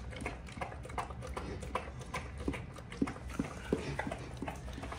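Shepherd dog eating a wet mash of barley, bread and marrow bone from a bowl: irregular wet smacking and chewing clicks as it eats eagerly.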